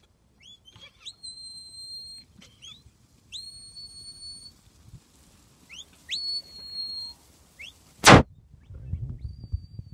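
A shepherd's whistled commands to a working sheepdog: a series of high whistles, each a quick upward slide into a held note, mixed with short rising chirps. About eight seconds in comes a loud knock, followed by low rumbling.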